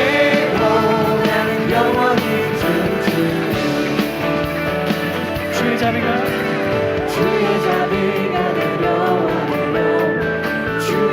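Contemporary worship band music with singing over a full, steady accompaniment.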